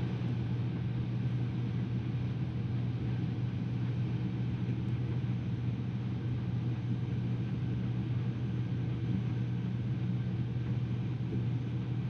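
Case IH Axial-Flow combine running steadily while harvesting soybeans, heard from inside the cab as an even low drone.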